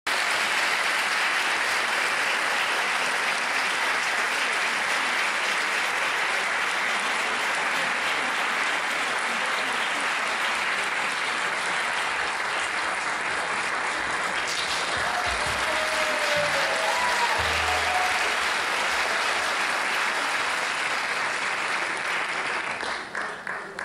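Theatre audience applauding steadily, the clapping thinning out to scattered claps near the end.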